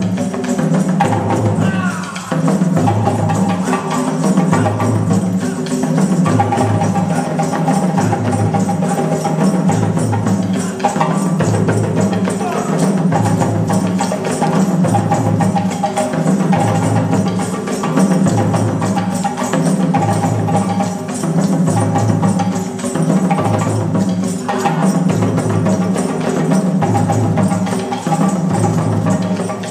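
Live West African drum ensemble playing a dense, steady rhythm on dunun barrel drums and hand drums, with a regular low pulse.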